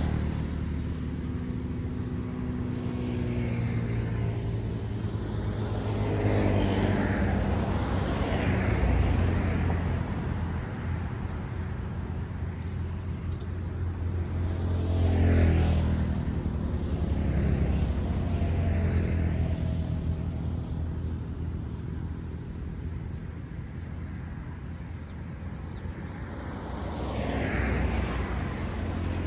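Road traffic on a highway: vehicles passing one after another, each swelling and fading, about five times, over a steady low engine drone.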